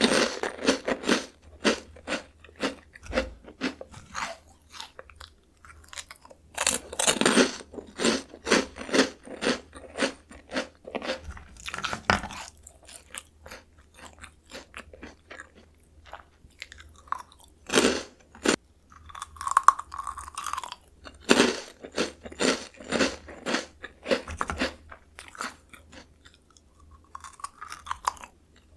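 Close-miked crunching and chewing of Jagalchi, a crispy seafood-flavoured Korean snack, in bursts of quick crunches with short pauses between.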